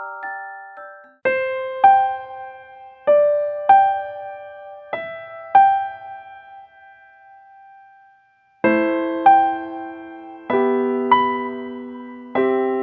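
Background piano music: slow notes and chords struck in pairs, each left to ring and fade. About two-thirds of the way through it falls briefly silent, then returns with fuller, lower chords.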